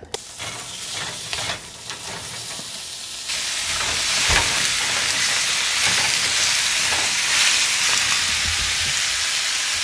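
Raw cubes of beef stew meat searing in a hot skillet. The frying sizzle gets much louder about three seconds in, as the meat goes into the pan, and then holds steady, with a few clicks of tongs turning the pieces.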